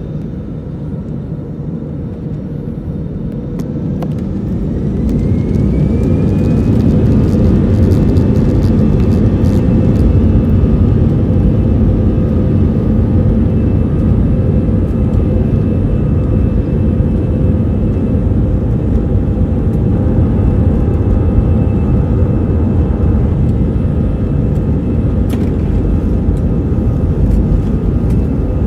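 Airbus A320-214's CFM56-5B turbofan engines heard from inside the cabin over the wing, spooling up to takeoff thrust for the takeoff roll: a rising whine about four seconds in, then a loud, steady engine roar as the aircraft accelerates.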